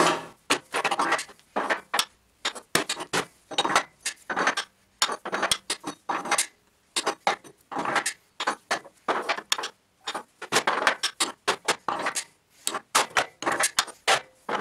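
Steel forging-press dies being lifted out of and set back into their locking die holder: many short metal clanks and scrapes, some ringing briefly.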